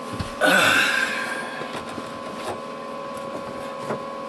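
Rustling and scraping of an arm and hands reaching in under a sink cabinet, loudest about half a second in and fading over a second, followed by a few light clicks as a flex hose is handled and screwed onto its fitting. A faint steady hum runs underneath.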